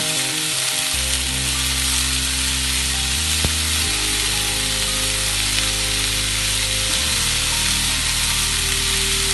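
Chopped banana flower and onion sizzling in oil in a non-stick pan while a spatula stirs them, a steady frying hiss. Under it run sustained low notes of background music that change every few seconds.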